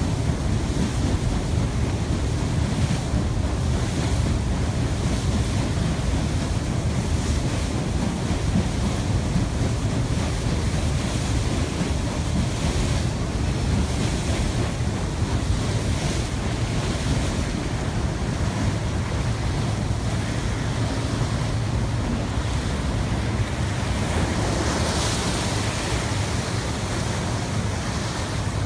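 Wind buffeting the microphone over the steady rush of water along the hull of the paddle steamer Rhône under way, with a low rumble beneath. The hiss of the wash swells for a moment near the end.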